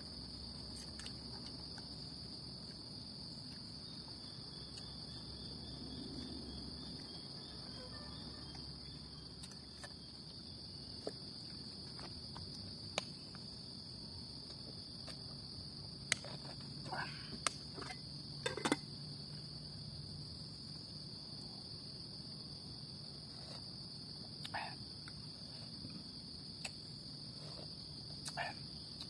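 Steady, high-pitched drone of insects, unbroken throughout. A few light clicks and knocks stand out over it, several close together about halfway through and a couple more near the end.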